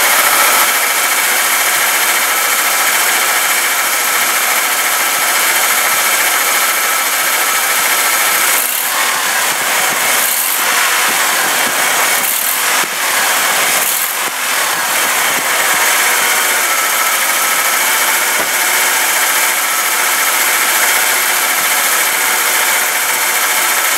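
1991 Ford F-150 engine revved and held at raised speed, with the new serpentine belt tensioner fitted. It makes a loud, steady running whir that dips briefly a few times near the middle, and it sounds good.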